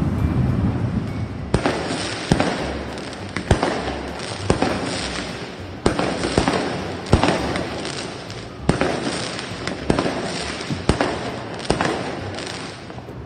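Fireworks going off: a string of sharp bangs, roughly one a second, each trailing away, over a continuous crackling hiss.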